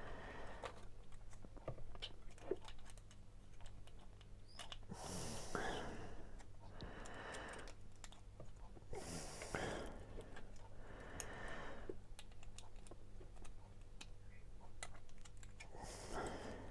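Small clicks and taps of the plastic pieces of a toy eyeball capsule being handled and pushed together while someone tries to reassemble it, with a few louder rustles now and then.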